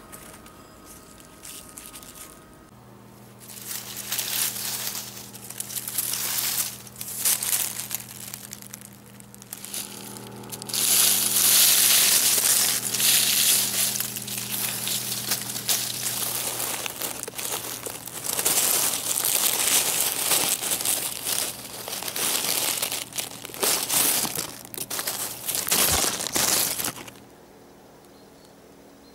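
Dry beech leaf litter rustling and crackling in irregular bursts as it is handled and trodden around picked porcini, loudest a little before the middle, dying away near the end.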